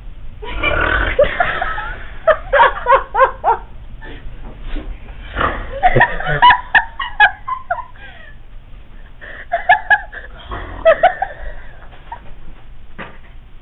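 Laughing in three bursts of quick, pitched giggles, several pulses a second, after a longer rasping sound near the start.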